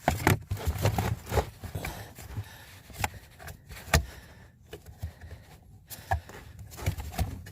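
Irregular clicks, knocks and scrapes of a used HVAC mode door actuator being handled while its cam is forced round by hand; the cam is stiff to turn. The loudest click comes about four seconds in.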